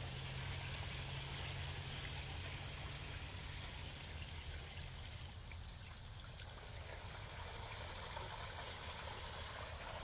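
Steady trickle and splash of water from a garden koi pond's waterfall and small solar-powered fountain.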